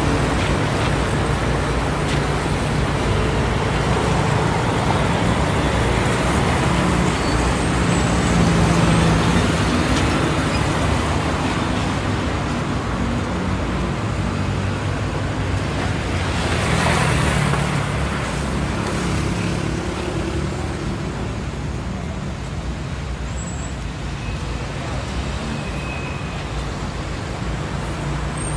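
Steady street traffic noise with a low rumble. A vehicle passes close about 17 seconds in, swelling and fading.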